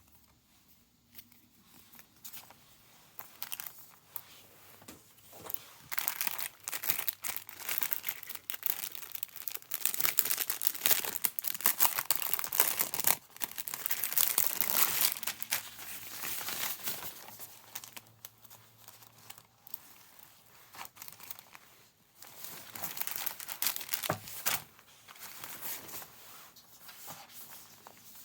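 Plastic packaging crinkling and tearing as it is handled and opened, in irregular bursts of crackle that are busiest in the middle stretch.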